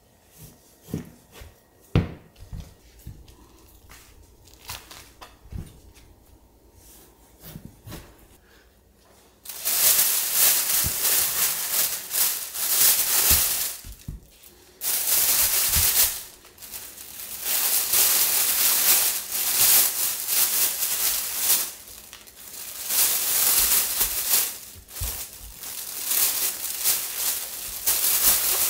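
A chef's knife cutting raw pork belly, with a few light taps on a plastic cutting board. About ten seconds in, a thin plastic bag starts crinkling loudly, on and off with short pauses, as portions of pork belly are packed into it.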